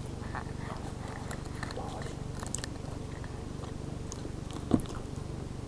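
A person chewing a mouthful of chicken cordon bleu casserole, with small scattered mouth clicks and one sharper click about three-quarters of the way through, over a steady low hum.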